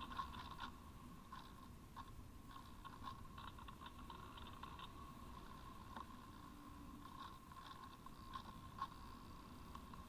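Faint onboard audio from a radio-controlled model glider in flight: a soft steady whine with scattered small clicks and crackles.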